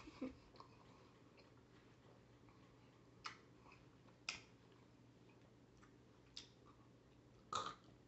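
Near silence broken by a handful of short, sharp clicks from eating watermelon out of a metal pot with a plastic fork. The loudest click comes near the end.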